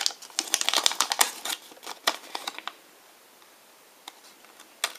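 A small clear plastic wrapper from a Kinder Surprise toy capsule crinkling and rustling as it is handled and opened by hand, dense crackly clicks that stop about two and a half seconds in; a single sharp click near the end.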